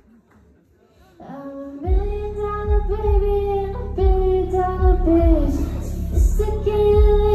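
Live pop performance: after a brief hush, a woman's singing voice comes in about a second in, and the backing band with a steady heavy beat joins about two seconds in.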